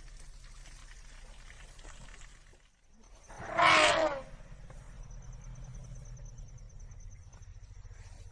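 An old Asian elephant trumpeting once, a short call of under a second about three seconds in, over low background rumble.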